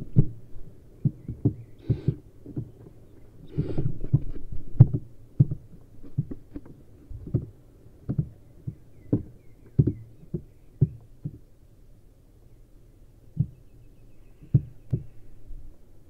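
Barn owl nestlings moving about in a wooden nest box: irregular dull thumps and knocks of feet and bodies against the floor and walls, with a stretch of scuffling about four seconds in.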